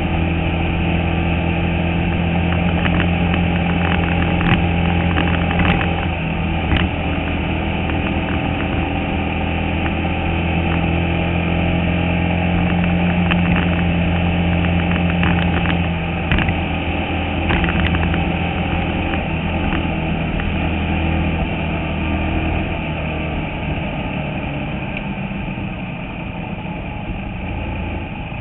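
A Bandolero race car's single-cylinder engine running at a steady speed, heard from inside the cockpit, with occasional sharp knocks and rattles from the car. The engine note drops a little near the end.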